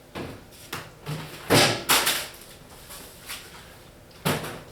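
Trigger spray bottle squirting soap and water onto the back of a window-film liner to reduce static, in about six short hissing bursts. The loudest come in a pair about a second and a half to two seconds in.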